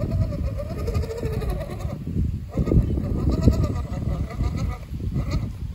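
Animals bleating: two long bleats and a short one near the end, over a steady low rumble.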